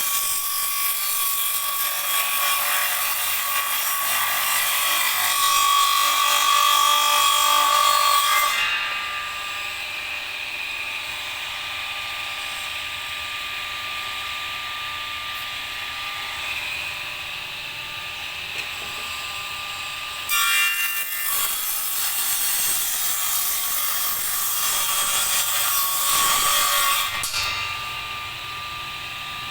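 An electric power saw runs throughout, cutting wood. The cutting is loud for the first eight seconds or so, eases off, then is loud again for about seven seconds starting around twenty seconds in.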